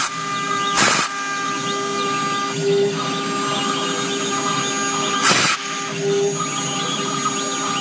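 CNC router's 1.5 kW air-cooled spindle running with a steady multi-tone whine, the machine's drives adding a lower tone that swells twice. Short loud rasping bursts, right at the start, about a second in and about five and a half seconds in, as the cutter works into the board.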